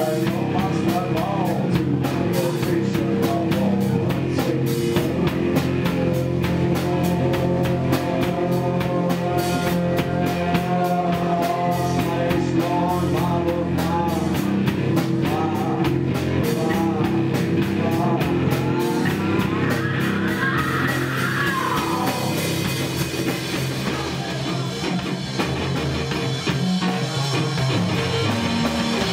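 Live rock band playing: drum kit with steady cymbal strokes, guitar and bass, with a male singer's voice over them. About three-quarters of the way through, the cymbals ease off.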